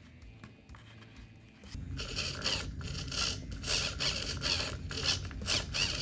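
Small hobby servo motors inside a foam-and-epoxy puppet hand, whirring and grinding in short repeated surges, a few a second, as they swing the thumb back and forth. They start about two seconds in, after a quieter stretch.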